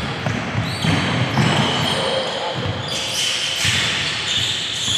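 Basketball game play in a gym hall: the ball bouncing on a hardwood court and players' shoes shuffling. In the second half there is a high-pitched squeal.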